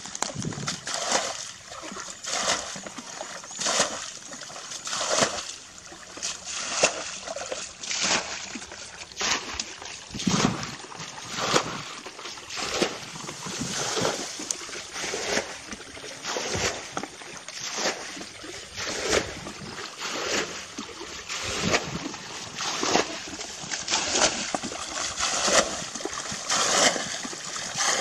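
Hands splashing and sloshing in shallow muddy water, over and over at roughly one splash a second, while groping in a flooded ditch for fish.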